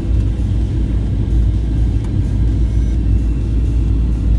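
Steady low rumble of jet engines and rushing air inside an airliner cabin on approach for landing.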